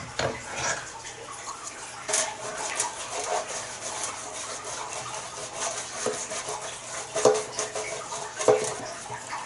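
Pastry brush swishing and scraping over a dark metal baking pan as it is greased with oil. A few sharp knocks come from the pan being handled, the clearest about two seconds in and twice near the end.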